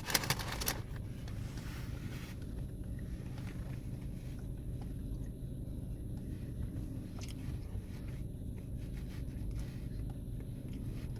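Crunchy chewing of a fried buttermilk chicken burger, with crisp crackles of the batter in the first second, then quieter chewing over a steady low rumble.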